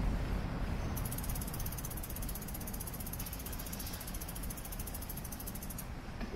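Bicycle freewheel ticking rapidly and evenly as the bike coasts without pedalling, starting about a second in and stopping near the end, over a low rumble.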